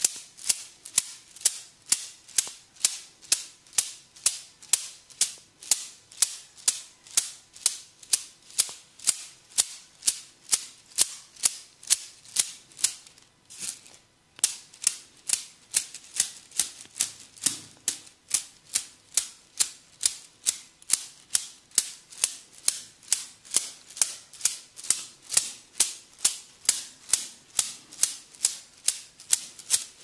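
Bamboo massage sticks tapping rhythmically on the body: a steady run of sharp, bright clicks, a little under three a second, with a short break about halfway.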